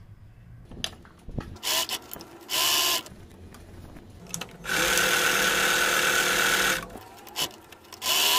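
Domestic electric sewing machine stitching fabric in separate runs, starting and stopping: a short burst of about half a second, a longer run of about two seconds, then another start near the end. Light handling clicks come before the first run.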